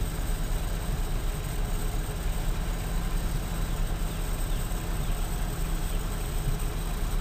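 An engine running steadily with a low rumble and a fast, even flutter.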